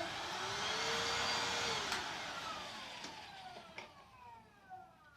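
Hoover H-Free 700 cordless stick vacuum run briefly: the motor spins up with a rising whir and runs for about two seconds. It is then switched off with a click, and its whine falls steadily in pitch as the motor spins down.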